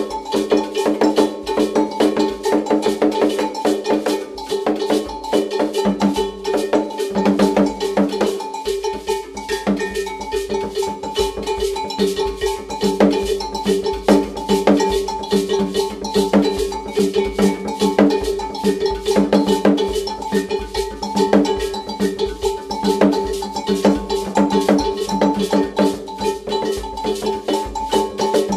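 Two tall hand drums played with bare hands in a fast, dense rhythm, the strikes ringing with a steady metallic tone.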